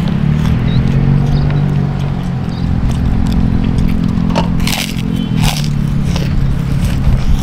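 Close-up eating sounds: chewing and crunchy bites, with a few sharp crackles about four and a half to five and a half seconds in. Under them runs a steady low engine hum.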